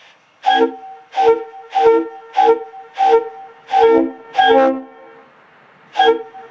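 Leslie RS-3L three-chime air horn sounding a chord in short blasts: seven in quick succession, a little under two a second, the sixth and seventh held a bit longer, then one more after a pause of about a second, each followed by an echo.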